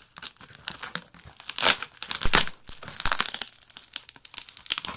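Scissors cutting and hands ripping through thick layers of plastic packing tape wrapped around a parcel: irregular crinkling, snipping and tearing.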